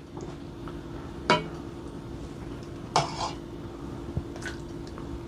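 A kitchen utensil clinking against a pan three times, about a second and a half apart, the first two loudest, while food is layered into it. A steady low hum runs underneath.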